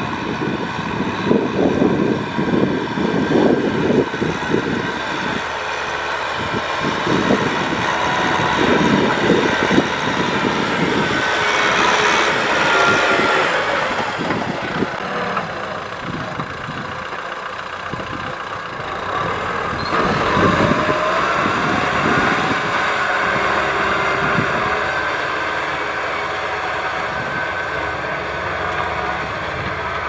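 Kubota M6040SU tractor's four-cylinder diesel engine working hard under load as it pulls a disc plough through the soil, its pitch rising and falling around the middle.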